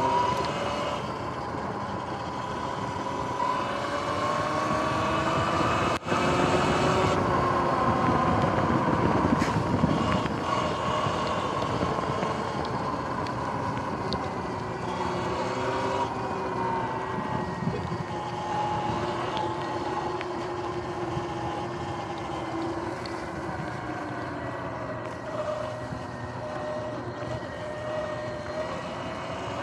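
Electric dirt bike's motor whining while riding, its pitch rising and falling with speed, over a steady rush of wind and tyre noise. A single sharp click about six seconds in.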